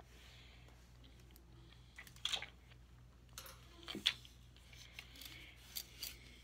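A few short rustles and clicks of handling close to the microphone, the loudest about two and four seconds in, over a faint steady low hum.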